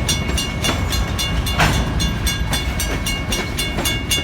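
Freight train of grain hopper cars rolling past: a steady low rumble with rapid, regular wheel clicks, about five a second, and a faint steady high squeal.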